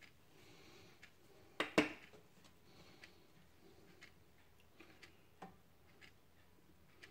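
Sharp plastic clicks and light knocks from a plastic squeeze bottle of ketchup being handled: two loud clicks close together about a second and a half in, then a scattering of small ticks.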